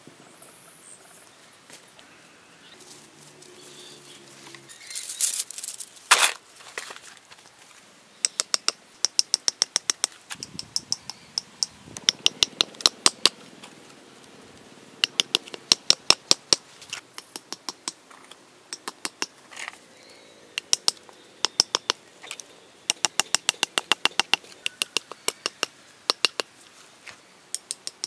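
Runs of rapid sharp knocks, about six to eight a second, each run lasting a second or two with short pauses between; a brief rushing noise comes before them, a few seconds in.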